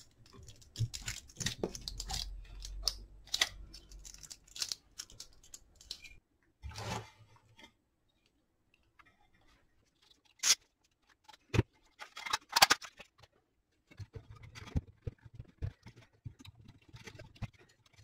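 Small handling sounds on a workbench. Kapton tape is pulled and pressed down on a circuit board with scratchy rustling. After a quiet pause come a few sharp clicks and more rustling as wires and terminals are worked with a screwdriver.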